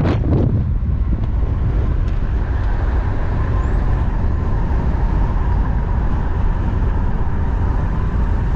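Car driving along with the window open: a steady, loud low rumble of wind and road noise rushing in at the window, with a faint steady whine above it.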